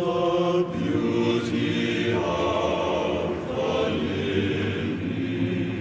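Many voices singing together in sustained notes, choir-like, with the pitch moving in steps from note to note.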